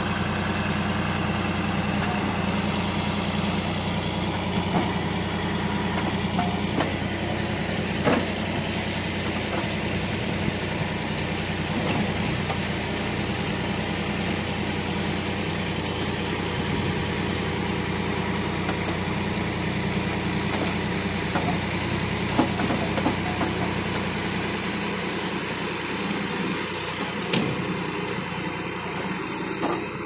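John Deere 5310 tractor's three-cylinder diesel engine running steadily while it works a tractor-mounted backhoe digging in sand, with a few sharp knocks. The deep part of the engine drone fades near the end.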